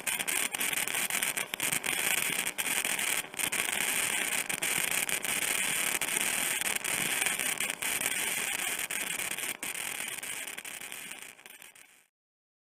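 Electric plasma discharge crackling and hissing steadily, with many sharp snaps, fading away near the end.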